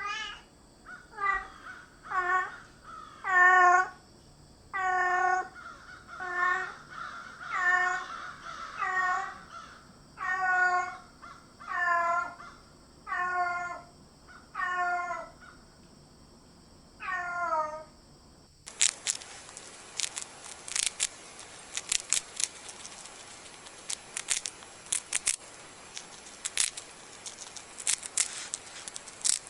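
An animal calling: about a dozen short, harsh, pitched calls, roughly one a second, each dropping a little in pitch. About two-thirds of the way in the calls give way to a faint hiss with scattered sharp clicks.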